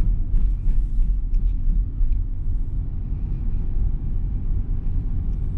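Cabin noise of a 2022 Mitsubishi Xpander Ultimate CVT under way: the 1.5-litre four-cylinder petrol engine running steadily with the CVT held in Ds mode, with road noise, making a steady low drone.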